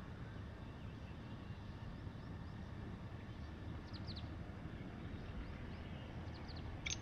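Low, steady outdoor background rumble with a few faint, high chirps of small birds about four seconds in and again near the end; a black francolin's loud call breaks in at the very end.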